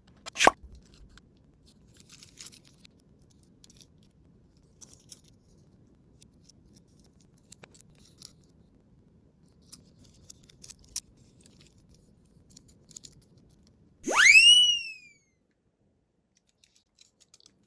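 Edited-in cartoon sound effects: a quick downward-sweeping effect at the start, and about fourteen seconds in a whistle-like effect whose pitch rises and then falls. In between, only faint scattered small clicks and rattles.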